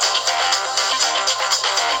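A preloaded Nokia 5610 ringtone playing: an electronic tune with a steady rhythm.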